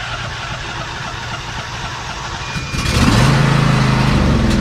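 Lawn mower engine running steadily, then growing markedly louder with a strong low hum about three seconds in.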